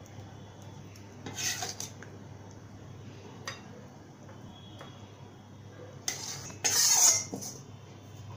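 A metal spatula scraping and knocking against a karai and a plate as fish curry is scooped out. There are two short scrapes about a second and a half in, a light click near the middle, and the loudest, longer scraping near the end.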